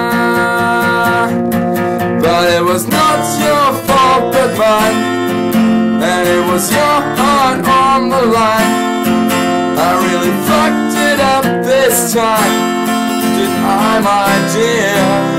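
Steel-string acoustic guitar strummed in a steady rhythm, with a man singing over it in a held, drawn-out melody that no words were picked out of.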